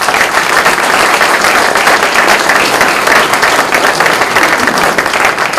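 Audience applauding, a dense steady clapping that begins to thin near the end.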